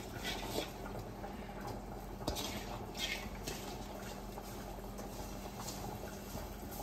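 Fish-curry masala bubbling at a steady boil in a clay pot, with a few brief soft sounds of small fish being handled and added.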